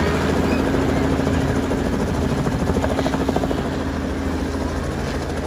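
Small Robinson piston helicopter flying low overhead. A steady engine hum sits under a fast, even chop from the rotor.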